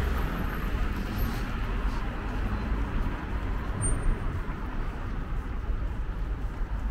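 Steady rumble of road traffic, a low, even noise with no single event standing out.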